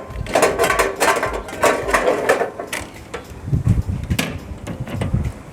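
Metal clicking and rattling as the coin collection box of a sanitary pad vending machine is handled and opened, with a few duller knocks in the second half.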